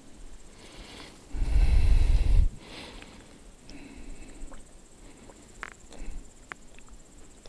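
A low rumble on the microphone for about a second, starting a second and a half in, amid softer breathy noises, followed by a few faint clicks.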